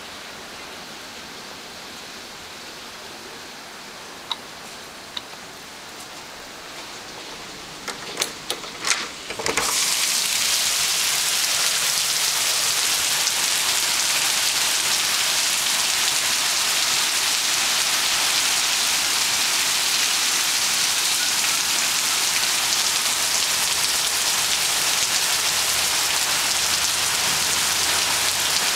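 Heavy tropical downpour. For the first several seconds it is muffled behind a window, then comes a few knocks and clicks about eight to nine seconds in. After that the rain is loud and close, a steady hiss of rain pouring on pavement and parked cars.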